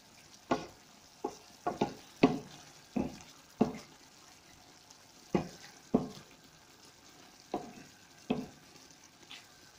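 A spoon stirring chicken curry in a pan, knocking against the pan about a dozen times at an uneven pace, with a couple of short pauses.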